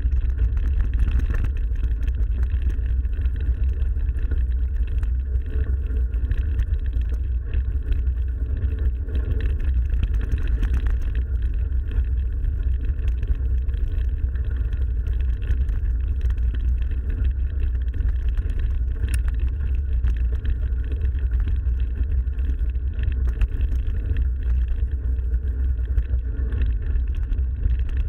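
Steady low rumble of wind and tyre noise on an action camera's microphone while riding a mountain bike on a forest trail.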